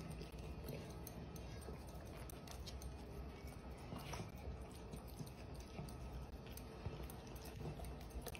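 Dachshunds sniffing and licking at a plastic treat-dispenser toy, with scattered faint clicks and taps.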